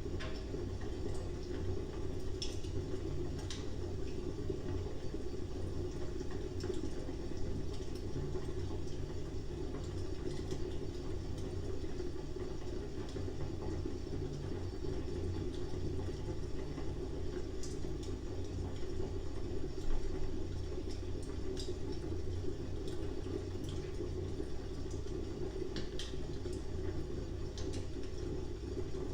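Wood fire burning with a steady low rush of flames and occasional sharp crackles and pops.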